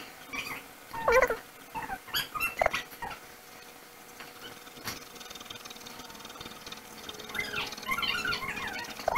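A pet's whines and squeaks: short, wavering high-pitched calls, a few in the first three seconds and a longer run near the end.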